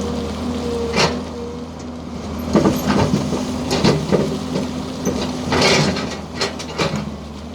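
Excavator's diesel engine running steadily under irregular knocks and clatter of crushed stone, with a brief rattling rush of stone about five and a half seconds in.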